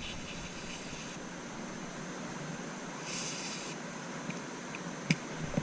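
Cloth rag rubbing over the metal of a ratchet in two brief scratchy wiping strokes, with a single small click near the end.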